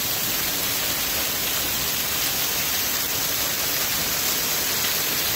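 Heavy hail coming down: a dense, steady hiss of countless hailstones hitting the ground.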